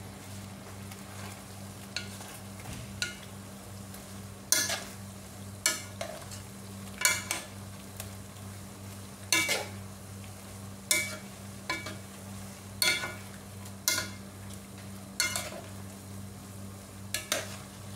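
Wooden spatula and metal spoon stirring noodle soup in a pan, knocking against it with short ringing clicks about once a second, over a steady low hum.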